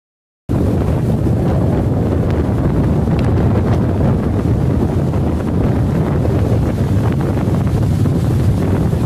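Silent for about half a second, then strong gusting wind of a norte gale buffeting the microphone, with breaking surf underneath.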